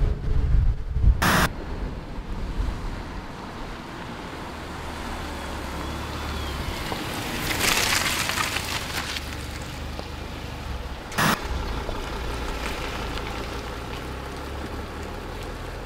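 Mercedes CLA Shooting Break prototype driving slowly past on a wet road: a low engine hum under a haze of tyre hiss, which swells as the car passes about eight seconds in. Two sharp clicks, about a second in and again near eleven seconds, come where the footage is cut.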